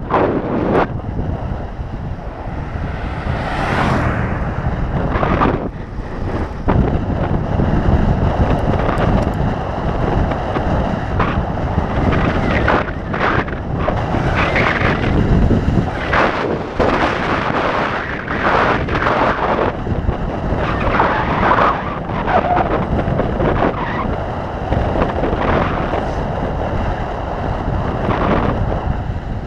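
Wind buffeting the microphone of a camera moving along a road, a loud, uneven rushing rumble that swells and falls in gusts.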